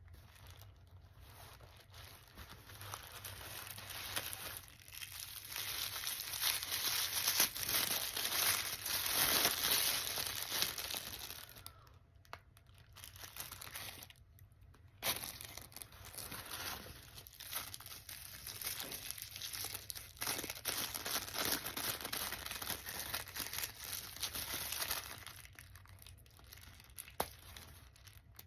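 Paper and plastic gift packaging crinkling and tearing as a box is unwrapped by hand, busiest in the first half, with a sharp click about halfway through.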